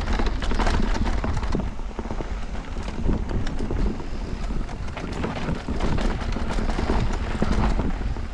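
Wind rushing over the microphone, with the rumble of tyres on a dirt trail and a steady clatter of knocks and rattles from a mountain bike riding a rough downhill trail.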